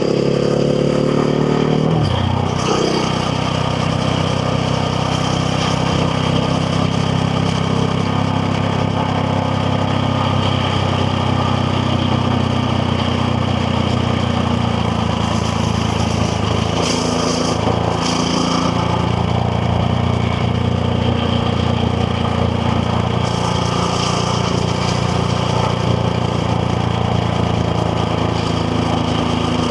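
KTM Duke 690R's single-cylinder engine running under way. It climbs in pitch for about two seconds, drops sharply, then holds a fairly steady note for the rest of the stretch.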